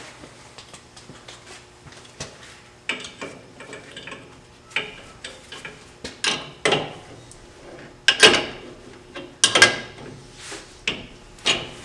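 Wrenches clanking on the arbor nut and wheel of a bench grinder as the wheel nut is worked loose: a string of irregular metal clinks and knocks, louder and more frequent in the second half.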